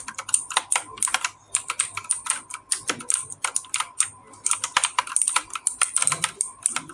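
Antesports MK3400 PRO V3 mechanical keyboard with blue clicky switches being typed on rapidly: a fast run of sharp key clicks, with a short pause about four seconds in.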